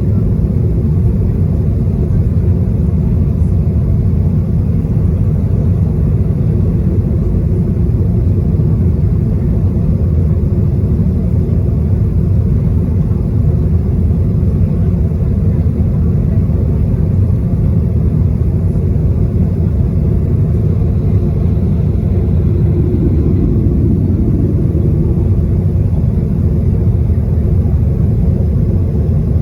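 Steady, loud cabin rumble of a Boeing 737-800 at takeoff power, heard from inside the passenger cabin: CFM56-7B engine noise and airflow.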